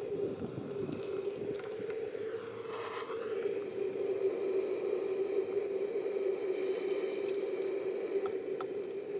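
Handheld butane gas torch on a cassette gas can burning steadily with a constant low hum.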